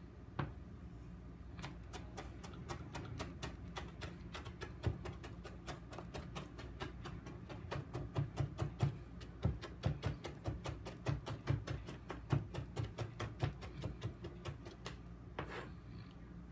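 Chef's knife mincing ginger on a plastic cutting board: a steady run of quick chops, about four a second.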